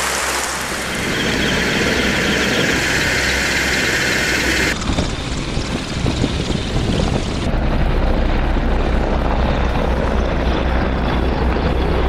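A crowd applauding for the first few seconds, then an abrupt switch to a helicopter's rotor and engine running steadily, with a heavy low rumble.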